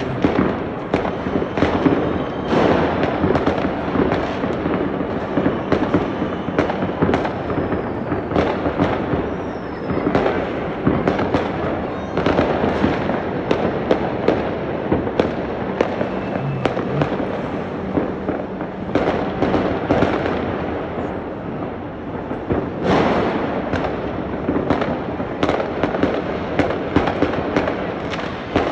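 Many fireworks and firecrackers going off at once: a dense, continuous crackle of bangs and pops with no break.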